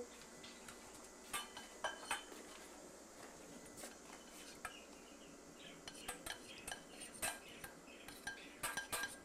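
Light clinks and taps of small pots, pans and utensils as a child plays at cooking, stirring and knocking them, scattered at first and busier near the end.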